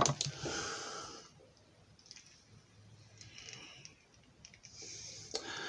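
Handling of a plastic action figure: a knock at the very start, then soft rubbing and light clicks as its faceplate is pressed onto the small pegs on the side of the head, with fingers brushing close to the microphone.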